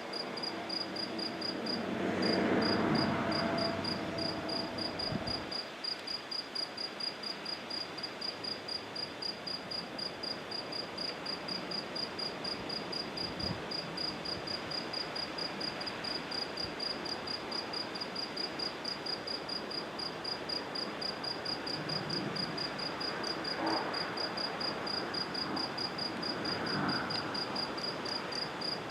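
A cricket chirping steadily at night, an even, regular high-pitched chirp that never breaks, with a brief louder swell of background noise a couple of seconds in.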